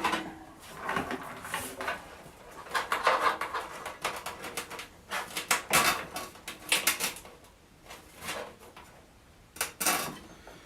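Power supply cables and their plastic connectors being handled and sorted inside a PC case: irregular clicking, clattering and rustling, quieter for a moment about eight seconds in.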